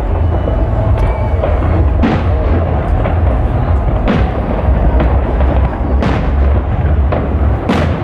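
Fireworks shells bursting with sharp bangs every two seconds or so, the loudest near the end, over a steady low rumble.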